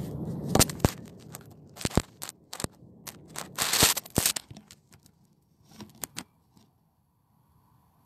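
Low rumble of thunder dying away, overlaid by a scattered series of sharp clicks and crackles, with one louder crackling burst near the middle; the clicks stop about six seconds in, leaving a faint hiss.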